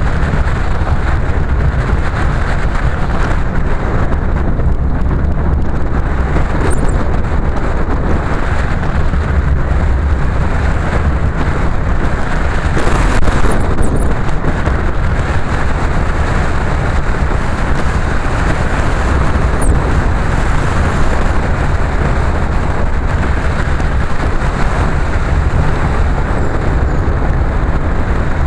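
A car driving along a road: a steady low rumble of engine and tyre noise, with a short louder burst near the middle.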